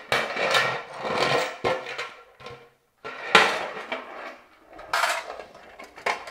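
Hard objects, tools and parts, clattering and clinking as they are handled, in several bouts with short pauses between them.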